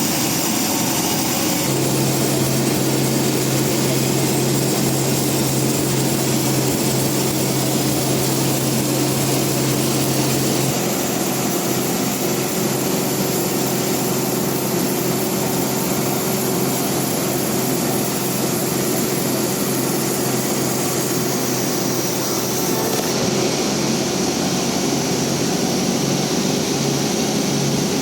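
Steady drone of industrial bandsaw sawmill machinery running, its held tones shifting a few times.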